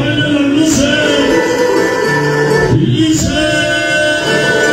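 Loud music over a sound system, with a man singing into a handheld microphone in long, wavering held notes.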